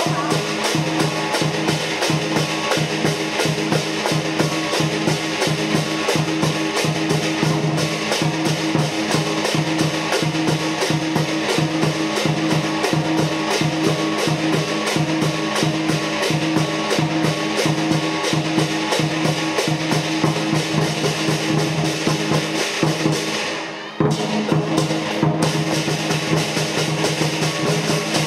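Lion dance percussion: a big drum beating a fast, steady rhythm with clashing cymbals and a ringing gong, accompanying the lion on the poles. Near the end the playing breaks off for a moment, then starts again.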